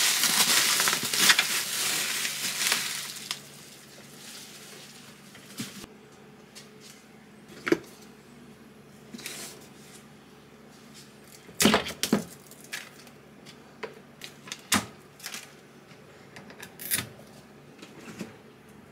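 Crinkling, crumpling noise that fades away over the first three seconds or so, then a run of scattered sharp clicks and knocks of small objects being handled, the loudest a double knock about twelve seconds in.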